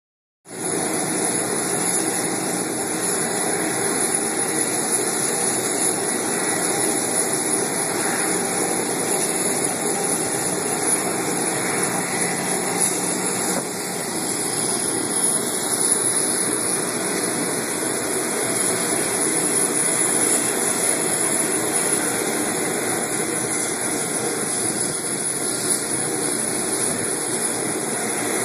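Jet aircraft engines running on an airport apron: a steady, constant noise with a thin high whine held over it.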